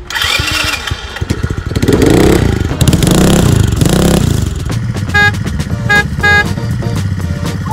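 Engine of a kids' mini motorbike (pocket bike) revving up and down, then running steadily. Three short horn beeps come partway through.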